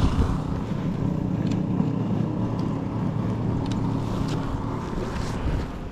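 Steady low hum of a motor vehicle's engine running close by, with wind rumbling on the microphone. The hum fades out near the end.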